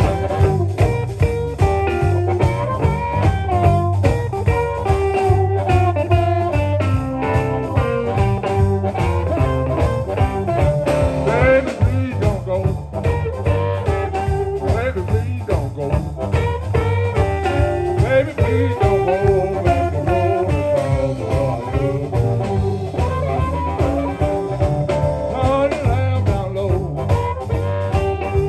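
Live electric blues band playing an instrumental break: an amplified harmonica plays held, bending lead notes over electric guitars, electric bass and drums keeping a steady beat.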